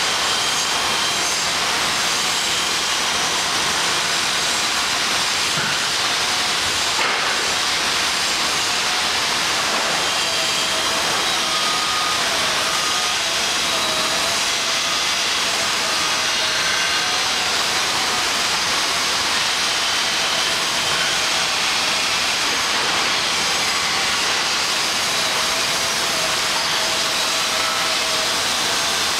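Steady, loud hiss of industrial plant noise with no breaks, with a faint whine underneath that wavers up and down in pitch.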